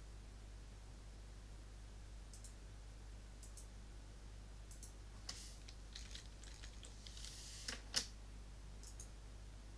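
Computer mouse clicking a few times, then a short run of keyboard typing about halfway through that ends in one louder key tap near the end.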